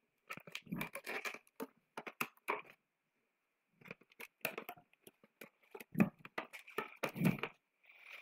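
Light handling noise of hands working with a doll: scattered rustles, scrapes and small clicks, with a short pause about three seconds in.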